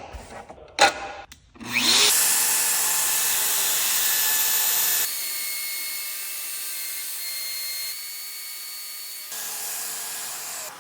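Handheld CNC router (Shaper Origin) spindle cutting wood: a steady, high whine with cutting noise that starts about two seconds in after a few knocks, and drops and rises abruptly in level twice.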